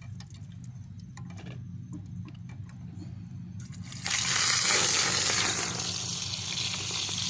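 Food dropped into hot oil in a pan, starting to sizzle loudly and suddenly about four seconds in. Before that come scattered small clicks and knocks of cooking gear.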